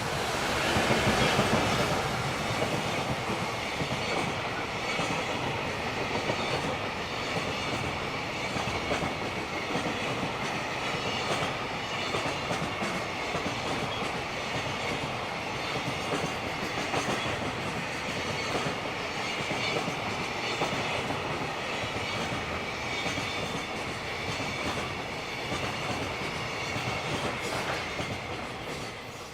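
JR Freight freight train passing close by. It is loudest about a second in as the front goes past, then a long string of freight wagons clatters by with steady wheel clicks, fading as the last wagons pass near the end.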